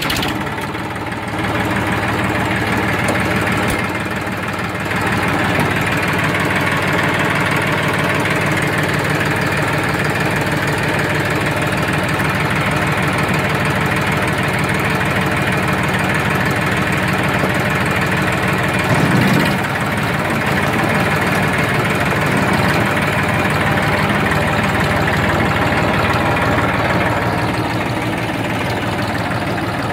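Massey Ferguson 2605 tractor's diesel engine running steadily just after start-up. It gets a little louder about four seconds in, with a brief change in tone about nineteen seconds in.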